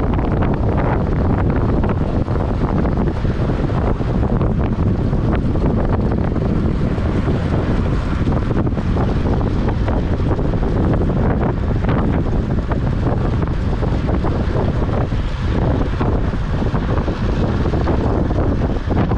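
Heavy, steady wind rush on the microphone of a camera riding on a track bike at race speed.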